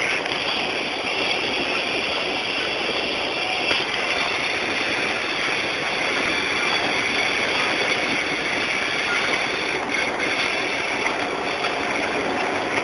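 Hailstorm: a steady, dense roar of countless hailstones striking, without a break.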